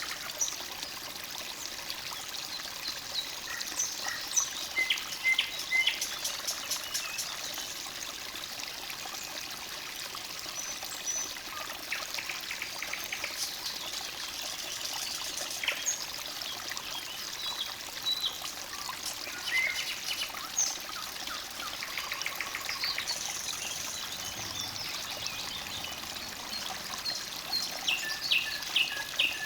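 Forest stream trickling steadily, with several songbirds singing and chirping over it in short notes and rapid trills.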